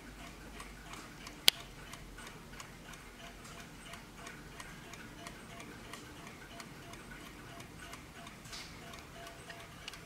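Vintage Warmink mantel clock's key-wound mechanical movement ticking steadily and rapidly, about three ticks a second, with one much louder sharp click about a second and a half in.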